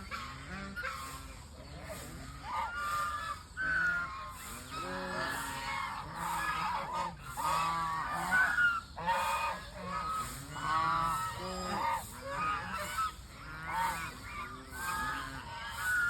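A flock of waterfowl calling, many short calls overlapping one after another.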